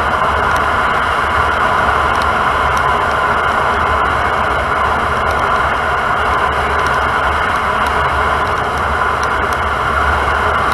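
Steady rushing road noise of a moving 2008 Lexus IS350, picked up from inside the wheel well next to the Tein coilover: tyre roar and air rushing over the microphone, with a low rumble underneath and a few faint ticks.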